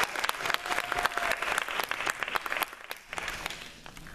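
Audience applauding, the clapping thinning out and dying away about three seconds in.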